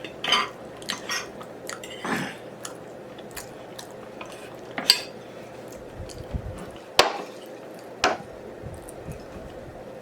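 Close-miked eating sounds: wet chewing and smacking, with scattered sharp clicks, the loudest two about seven and eight seconds in.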